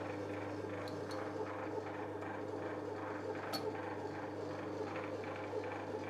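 Metal lathe running steadily with a low hum, turning a between-centres boring bar that is taking a cut through the bore of a casting. There are a few faint ticks about a second in and again a little after three seconds.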